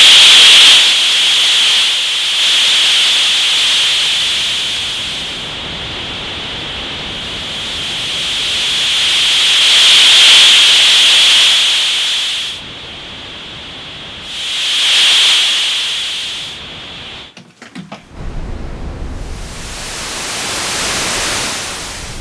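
Korg ARP 2600FS noise generator heard straight from its output with no filter, as its noise colour control is turned: a loud hiss, brightest high up, that swells and fades several times, then changes to a low rumbling noise about three-quarters of the way through. To the owner it lacks the thickness of the vintage ARP 2600's noise.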